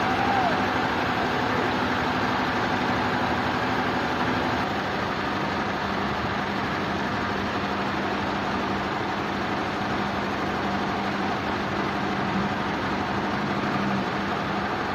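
Sawmill machinery running steadily: a continuous engine-like hum over a noisy wash, with one of its low steady tones dropping out about five seconds in.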